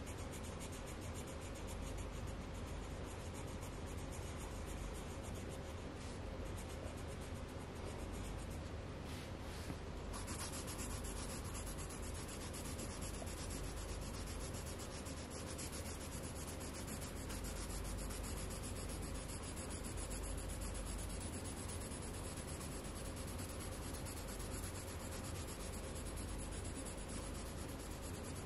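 Coloured pencil scratching on paper in quick back-and-forth shading strokes, filling in an area with steady, continuous rubbing.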